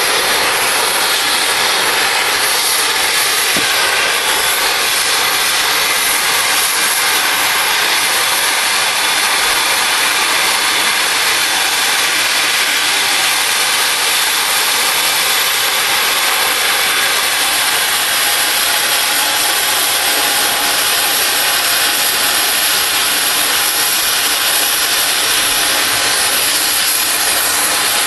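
Oxy-fuel cutting torch flame-cutting steel railroad rail: a loud, steady, continuous hiss of the torch jet.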